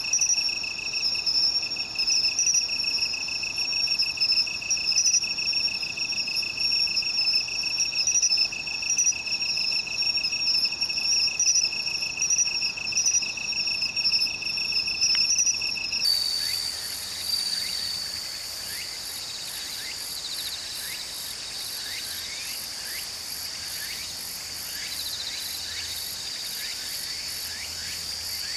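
Crickets and other insects singing in grass. First comes a steady, pulsing trill. About halfway through it changes suddenly to a higher, continuous trill laced with many short chirps, a little quieter.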